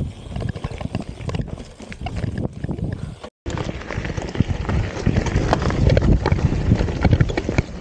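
Mountain bike clattering over a rough, rocky trail: a fast, irregular run of knocks and rattles from the tyres and bike over rocks and roots. The sound cuts out for a split second about three seconds in.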